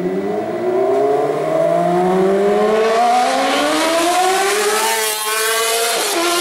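Honda CBR sportbike's inline-four engine revving hard under acceleration, its pitch climbing steadily for about five seconds. The pitch drops suddenly near the end as it shifts up, then holds.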